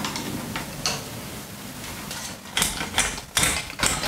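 A small sheet-metal electrical box and its old wiring being handled and pried open by hand: rustling and scraping, then a quick run of sharp metallic clicks and knocks in the second half.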